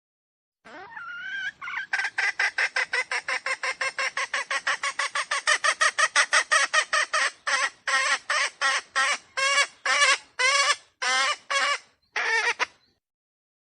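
Red junglefowl (wild chicken) calling a long run of short clucking notes, about six a second, that slows to two or three a second in the second half and stops near the end.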